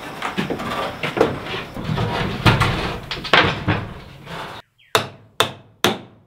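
Knocks and clatter of wood framing being handled, then after a sudden cut, a hammer driving a nail into a 2x4 stud-wall bottom plate with four sharp, evenly paced blows about two a second.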